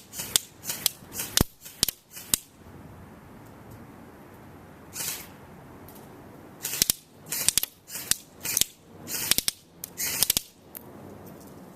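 JG M4 Commando RIS airsoft electric rifle firing, sharp snapping shots in quick strings of single shots about three a second. There is a pause of about two seconds, a lone shot midway, then two more strings.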